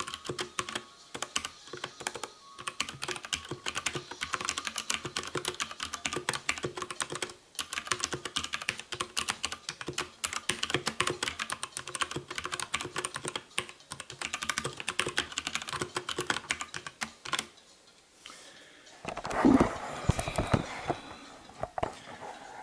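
Fast typing on brown-switch mechanical keyboards, a Dierya DK63 and a Gramr with Cherry MX Browns: a rapid, continuous run of key clacks that stops about seventeen seconds in. A couple of seconds later come a few louder, deeper knocks and rustles.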